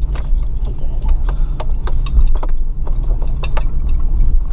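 Off-road vehicle's engine running with a steady low rumble, under frequent irregular knocks, clicks and rattles as the vehicle works over rough off-road ground.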